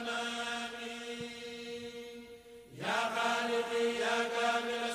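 Quiet background chanting: one long held note fades out about halfway through, and a new held note begins just after.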